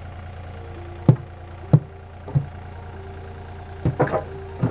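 Mini excavator engine running steadily at idle, with a handful of sharp knocks and clatters over it.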